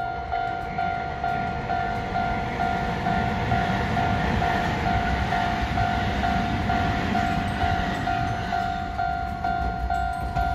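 Level-crossing warning bell ringing in an even pulse, about two dings a second, as a Hiroden tram approaches with a low rolling rumble that grows through the middle.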